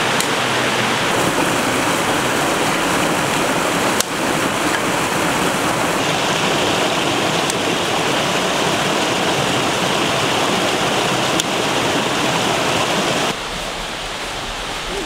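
Steady rushing of a rocky creek's small cascade, water pouring over stones in an even hiss; it gets quieter shortly before the end.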